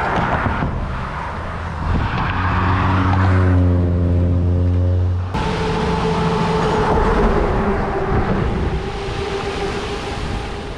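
Road traffic and wind on the microphone: a passing vehicle's engine hums steadily for about three seconds, then cuts off sharply about five seconds in. A steady higher traffic hum and noise go on through the rest.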